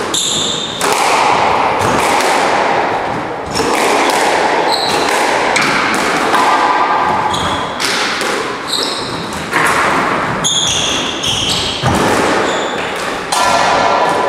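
Squash rally: the ball smacking off rackets and the court walls every second or two, each hit ringing in the court, with short, high rubber-soled shoe squeaks on the wooden floor between the hits.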